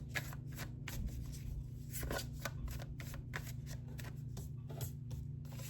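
A deck of tarot cards being shuffled by hand: a run of quick, irregular card clicks and slides, with a louder snap at the end.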